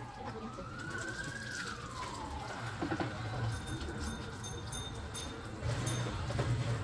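Wailing siren, its pitch rising and falling slowly once and then holding a steady high tone for several seconds.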